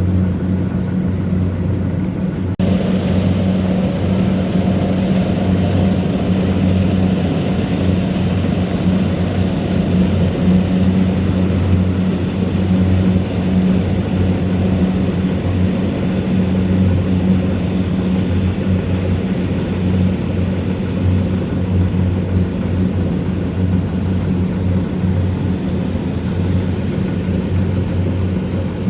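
Kubota DC-70 Plus combine harvester running steadily under load: a diesel engine drone with the whir and hiss of the threshing and cutting machinery. About two and a half seconds in, the sound changes abruptly to a brighter, hissier mix.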